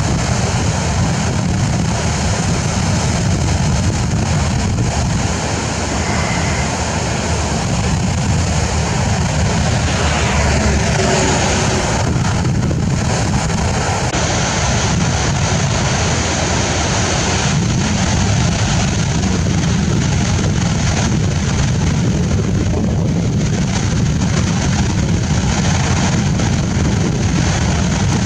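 Floodwater spilling over low concrete weirs in a loud, steady rush, with wind buffeting the microphone.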